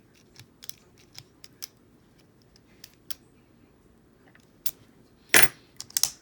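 Small metallic clicks from an aluminum padlock being worked by hand, then a single loud, sharp metal clack about five seconds in, followed by a few more clicks.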